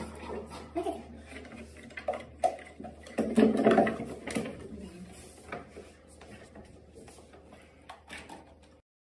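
Scattered knocks, clicks and rattles of wood and a dish as a dog shifts about in a wooden box and is fed by hand, with a louder cluster of knocking about three seconds in. A low steady hum runs underneath.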